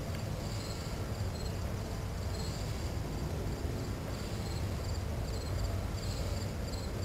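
Insects chirping in short, high-pitched pulsed trills that repeat throughout, over a low steady rumble.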